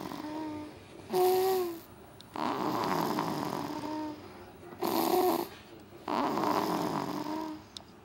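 Snoring in a slow, regular breathing rhythm, about one breath every three and a half seconds. Each breath is a long rasping snore followed by a shorter, louder one with a whistling tone; the pattern repeats twice.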